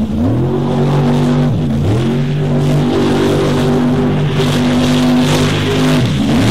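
Formula offroad race car's engine held at high revs as it ploughs through a mud bog, its pitch dipping sharply and climbing back three times (at the start, about two seconds in, and near the end). This is the engine that lost two pistons and its crankshaft on this run.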